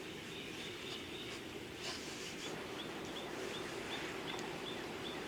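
Quiet outdoor background: a faint high chirp repeating evenly about three times a second, over a low steady hum.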